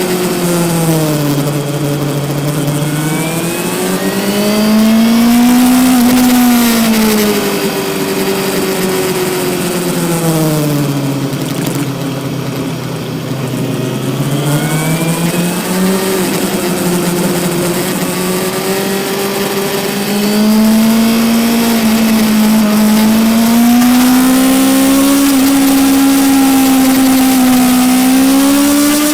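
Yamaha R6 sport bike's inline-four engine heard from onboard as it is ridden, its pitch dropping and rising twice as engine speed falls off and builds again. In the last third it holds higher and steadier with small rises, over a steady high hiss.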